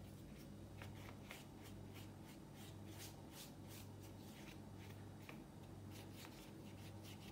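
Faint, soft swishes of a paintbrush stroking wet acrylic paint across paper, many short strokes one after another, over a low steady hum.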